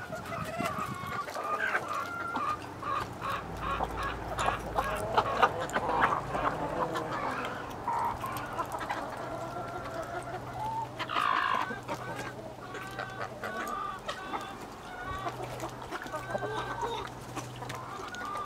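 A flock of chickens clucking, short repeated calls overlapping throughout, with one louder call about eleven seconds in.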